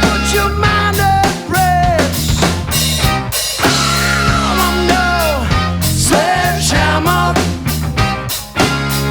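A band playing rock music live, with drum kit hits, a steady bass line and a lead line that bends up and down in pitch, without singing.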